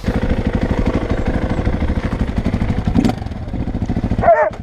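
KTM 450 EXC single-cylinder four-stroke enduro engine running steadily, its firing pulses even and unbroken. A dog barks once near the end.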